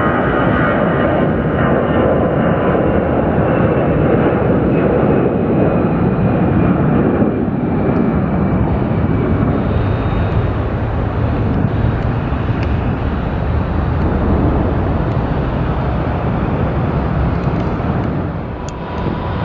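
Airbus A321's twin jet engines at takeoff thrust: a loud, steady roar with a high whine that slowly falls in pitch as the jet rolls down the runway, lifts off and climbs away, easing off a little near the end.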